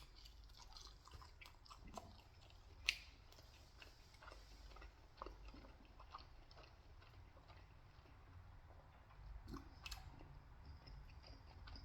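Faint, close-miked chewing of pizza: soft mouth clicks and smacks, with one sharper click about three seconds in.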